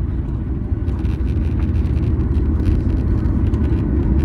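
Steady low rumble of an airliner rolling out on the runway after touchdown, heard inside the cabin, with light rattles from the cabin fittings. It grows slightly louder about a second in.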